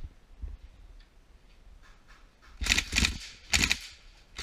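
Electric airsoft rifle firing short full-auto bursts, each a rapid rattle of clicks. Two bursts come just after halfway, and a third starts at the very end.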